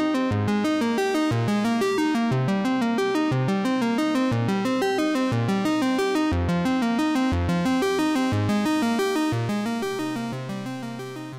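Background music with quick, evenly repeated notes over a bass line that changes about once a second, fading out over the last couple of seconds.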